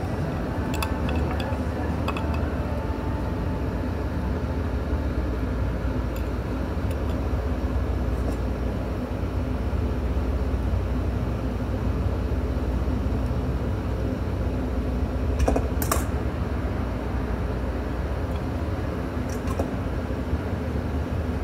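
Steady low background rumble, with scattered light clicks and taps: several near the start, the loudest about fifteen seconds in, and a few more near the end.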